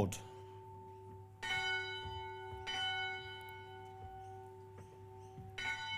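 A bell is struck three times, about one and a half seconds in, again about a second later, and once more near the end. Each strike leaves a clear, steady ring hanging in the air.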